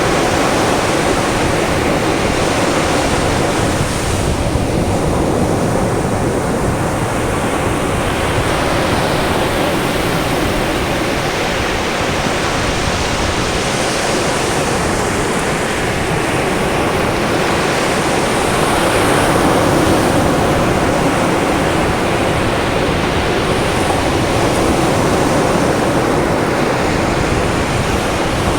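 Caribbean sea surf breaking on a sandy beach: a steady, dense rush of waves that swells and eases every few seconds.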